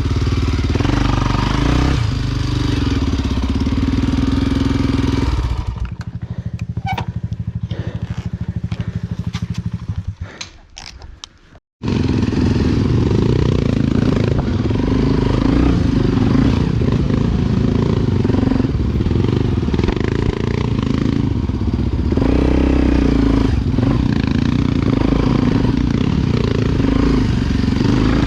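Honda XR Tornado's single-cylinder four-stroke engine running under way. About six seconds in it drops to a quieter, evenly beating idle that fades away with a few clicks; after a brief silent break the loud engine running returns.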